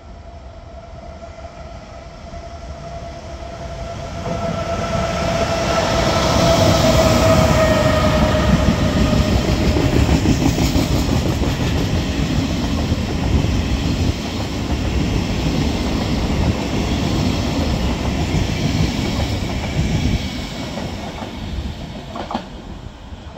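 A regional passenger train pushed by an E464 electric locomotive at its rear passes slowly. Its wheels rumble and clack over the rail joints, and a whine falls slightly in pitch as the front draws level. The noise builds over the first few seconds, holds, and fades after about twenty seconds as the train moves away.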